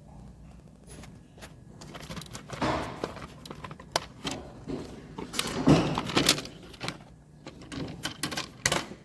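Plastic timing belt cover being pried and worked loose by hand, giving irregular scrapes, clicks and knocks of plastic and tools, loudest about two thirds of the way in. The cover is held by sealant glue that has to be cut, as it has never been off before.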